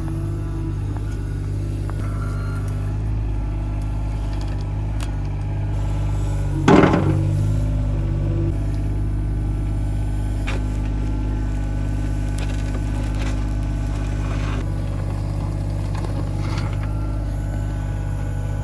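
Hitachi ZX26 mini excavator's diesel engine running steadily as it digs, with one loud knock about seven seconds in and a few lighter knocks later.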